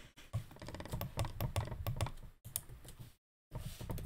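Computer keyboard keys clicking in quick, irregular taps, with a brief dead-silent gap about three seconds in.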